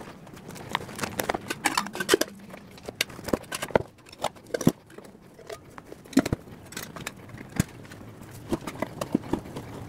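Rapid, irregular clatter of knocks and clinks as stainless steel camp cookware and gear are handled and packed into a plastic toolbox, sped up.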